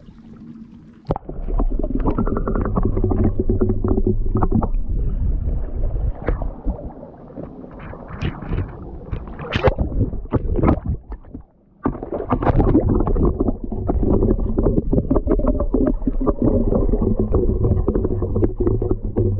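Sea water sloshing and gurgling against an action camera's waterproof housing as it is dipped into the sea, then the muffled underwater rumble of the swell, with fine crackling. The rumble starts about a second in, drops out briefly about 12 seconds in, and comes back.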